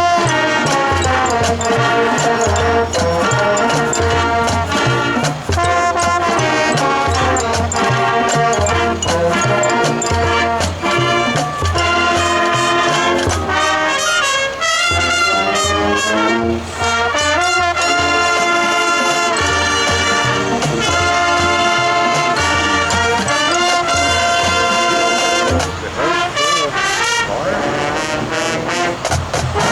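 High school marching band playing, the brass section (trombones and trumpets) carrying sustained melody and chords over a steady low beat.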